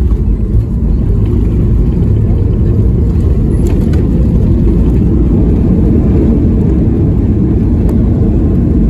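Loud steady low rumble inside the cabin of a Boeing 737 MAX 8 rolling down the runway after landing: engine and wheel noise.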